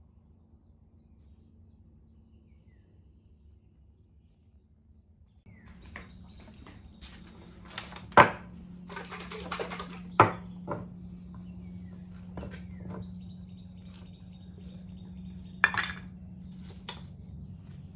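Tools and metal parts being handled on a workbench: scattered clinks and knocks, with two sharp knocks about eight and ten seconds in. A steady low hum runs under them from about five seconds in.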